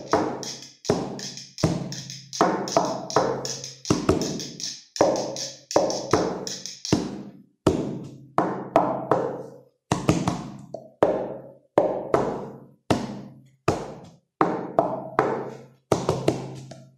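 Music with a steady percussive pulse: struck, pitched notes, each fading quickly, about one or two a second.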